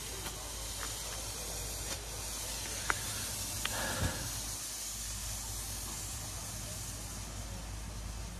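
Several 2-gram smoke balls hissing steadily as they pour out coloured smoke. A few sharp clicks and a soft knock come about halfway through.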